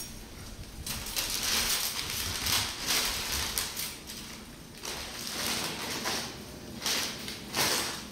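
Paper liner crinkling and rustling as it is pulled out of a wire-mesh surgical instrument tray, with metal instruments clinking in the tray. It comes in uneven bursts, with two sharper ones near the end.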